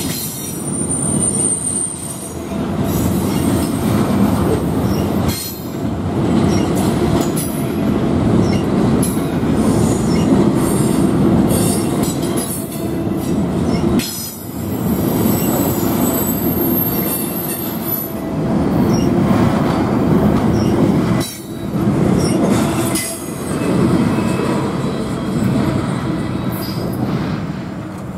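Double-stack intermodal well cars rolling past on the rails: a steady low rumble of steel wheels on track, with brief high-pitched wheel squeals, and short dips where gaps between cars go by. The rumble eases near the end as the last car clears.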